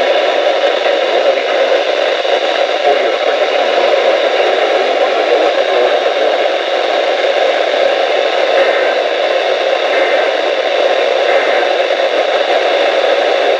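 Steady static hiss from a weather radio receiver.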